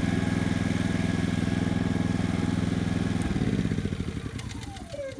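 Honda EB2800i inverter generator running steadily in eco mode, then shut off about three seconds in: the engine note breaks up and winds down with a falling whine, stopping near the end.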